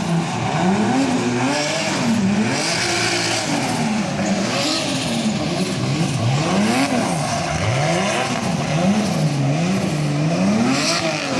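Rally car engine revving hard up and down, its pitch climbing and falling about once a second as the car is thrown through a show run, with short bursts of tyre noise.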